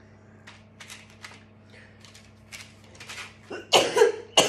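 A woman's coughing fit: a few harsh, loud coughs begin about three and a half seconds in. Before them there are only faint clicks and rustles of kitchen handling over a low hum.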